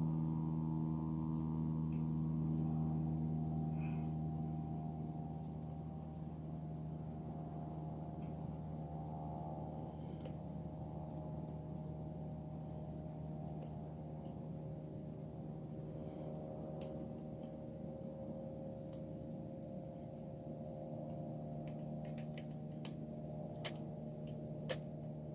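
Scattered small metallic clicks of a hook pick and tension wrench working the pin stack of a padlock, a few sharper clicks near the end, over a steady low hum of several held pitches.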